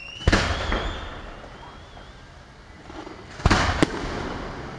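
Aerial firework shells bursting: a loud bang about a quarter of a second in that trails off slowly, then two more bangs in quick succession about three and a half seconds in.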